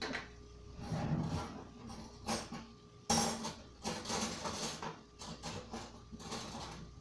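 Irregular rustling and knocking as kitchen items are handled and moved at the counter, with a louder burst of rustling about three seconds in.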